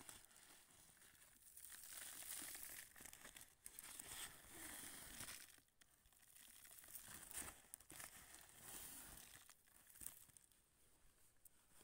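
Faint rustling and crunching of a hand digging through crushed calcium fluoride (fluorite) lumps in a woven plastic sack, with scattered scratchy clicks of the grains and the sack fabric.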